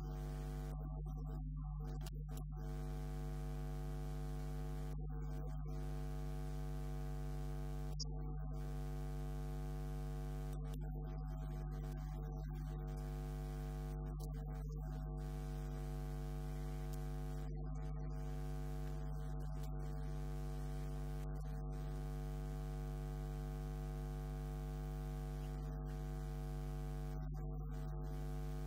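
Steady electrical mains hum: a low buzz with several constant overtones that never change in pitch or level, with no speech heard over it.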